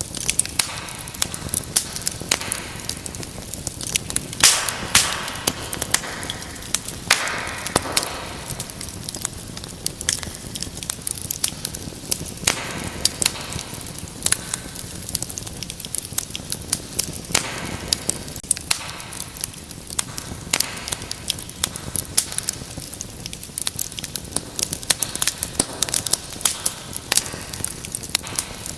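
Wood fire crackling steadily in a fireplace: a constant hiss of burning wood with frequent irregular sharp pops and snaps, a few of them louder.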